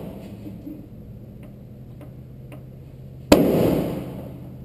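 A center punch struck once, sharply, into a rusted-in window screw head on a 1966 VW bus's steel body about three seconds in, marking it so a drill bit can start; the sheet metal rings briefly after the hit. A couple of faint taps come before it as the punch is set in place.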